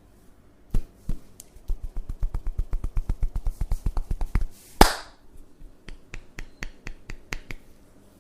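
Percussive massage tapping by hand: a few single strikes, then a fast even run of about seven sharp taps a second, one very loud slap a little before the five-second mark, then lighter taps at about four a second.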